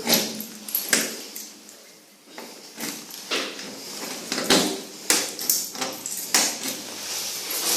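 Passenger lift car travelling down between floors, with a string of sharp clicks and knocks from the car and its equipment over a low background noise.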